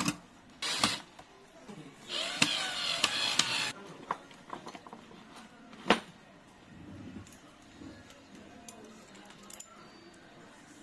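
Hands handling small lock hardware: a few sharp clicks and knocks, with rustling, the longest stretch about two seconds in lasting over a second, and a sharp click about six seconds in.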